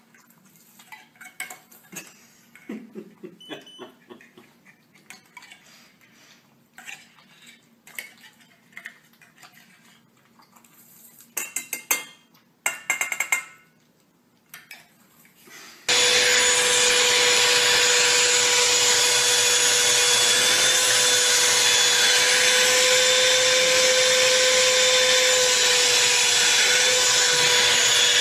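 A spoon clinking against stainless-steel food bowls and a can as cat food is dished out, with scattered light clinks and a louder clatter. A little over halfway in, a vacuum cleaner starts suddenly and runs loud and steady with a whine.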